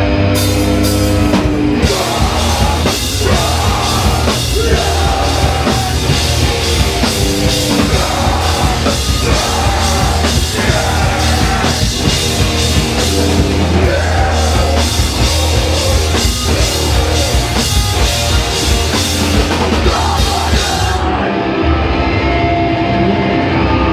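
Live punk/metal band playing loud: distorted electric guitars, bass and a drum kit with crashing cymbals. Near the end the cymbals drop out while the guitars and bass keep going.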